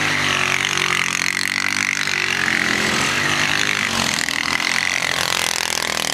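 Small quad bike (ATV) engines running and revving, their pitch rising and falling as the throttles open and close, with more than one engine overlapping.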